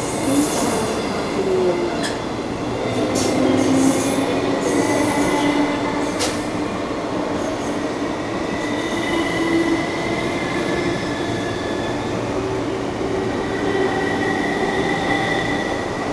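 Trains passing close by at speed: the last passenger coaches of a loco-hauled train roll past, then an electric multiple-unit commuter train runs by on the next track. There is a steady rumble of wheels on rail with a held high whine, and a few sharp rail clicks in the first six seconds.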